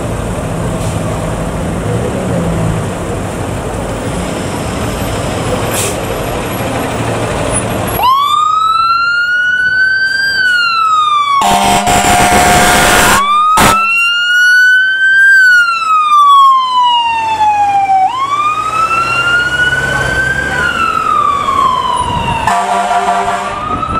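2012 Sutphen pumper fire engine running as it pulls out, then its siren starts a third of the way in with a wail, slow sweeps rising and falling, cut twice by long horn blasts.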